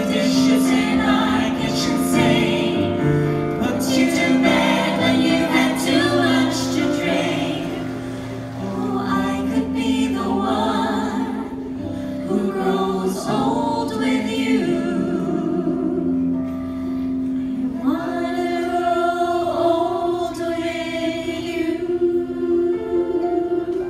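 A small vocal ensemble singing together in harmony through microphones, settling into a long held chord over the last several seconds.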